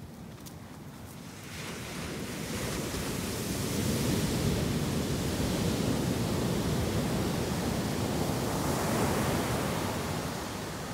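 Ocean surf breaking on a sandy beach, the rushing wash swelling about a second and a half in and easing near the end.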